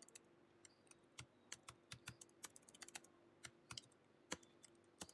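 Faint typing on a computer keyboard: irregular key clicks coming in short, quick runs.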